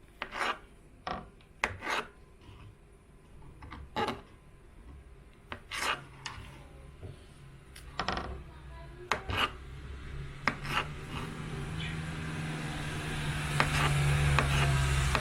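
Scattered knocks and clicks of objects being handled, then a steady hum with a hiss that grows louder over the last few seconds.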